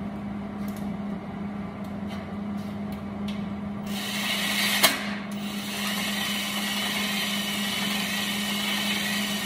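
Cordless drill running steadily from about four seconds in, driving the semi-truck brake slack adjuster that rotates the head of a gear-reduction engine stand, with a sharp knock just after it starts. A steady low hum runs underneath throughout.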